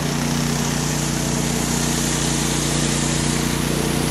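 Pressure washer engine running steadily at a constant pitch, with the steady hiss of high-pressure water spraying from a rotary surface cleaner onto concrete.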